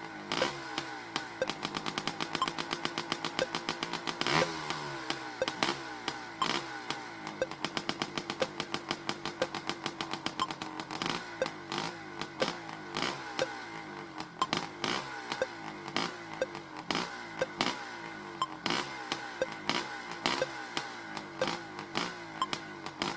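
Motorcycle engines revving and running, with rapid exhaust pulses rising and falling in pitch, and a short high beep about once a second.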